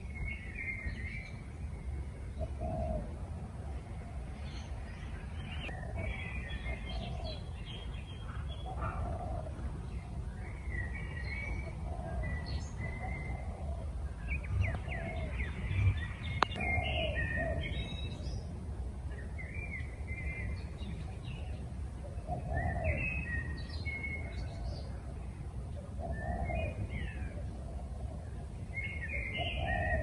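Birds chirping and calling over and over, short high chirps every second or two with lower notes among them, over a steady low background rumble. A single sharp click a little past halfway.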